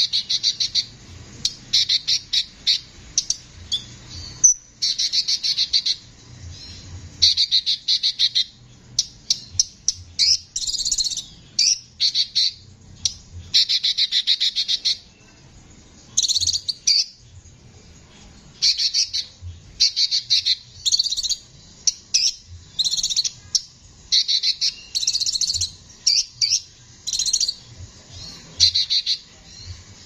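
Male sunbird ('Konin' to Indonesian birdkeepers) singing vigorously in a harsh voice: phrases of fast, high repeated notes, each a second or so long, one after another with short pauses.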